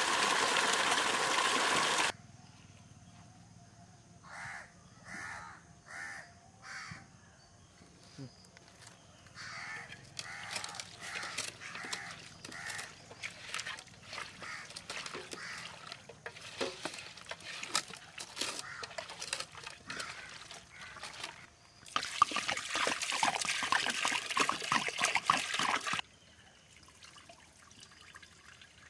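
Water running for about two seconds, then birds calling: about five evenly spaced calls, followed by a long run of many quicker calls. Water runs again for about four seconds near the end.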